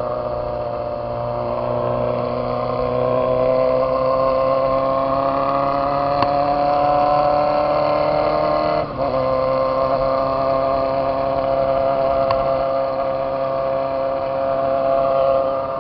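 Motorcycle engine under way with a loud exhaust, its pitch climbing steadily as it accelerates. About nine seconds in the sound dips briefly as it shifts up a gear, then it runs on at a lower, steady pitch.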